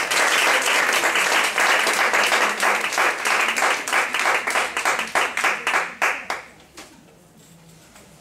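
Audience applauding, dense at first and then thinning into scattered claps that die away about seven seconds in.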